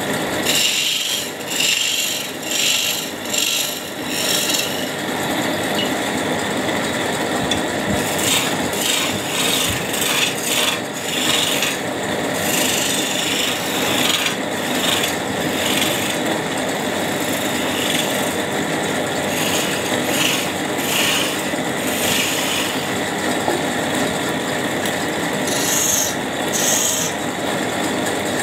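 A hand chisel cutting into a spinning wooden bed leg on a wood lathe. It makes a rough scraping hiss that comes in repeated short passes as the tool is worked along the wood.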